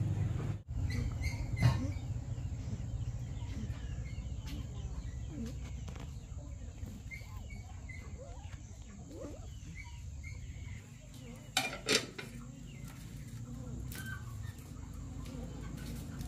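Fowl clucking and chirping in short scattered calls over a steady low rumble, with a sharp knock about a second and a half in and two more close together near twelve seconds.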